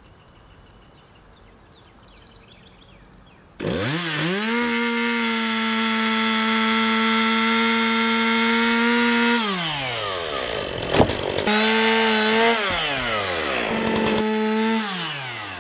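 Two-stroke chainsaw starting up about three and a half seconds in and revving to full throttle as it cuts through fallen logs. It holds a steady high whine for about six seconds, drops back toward idle, then revs up twice more briefly. A sharp knock comes about eleven seconds in.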